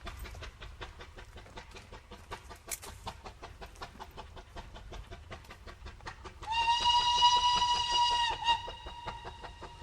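Steam locomotive whistle blowing one steady, high note for about two seconds, starting about six and a half seconds in, over a fast, even clatter.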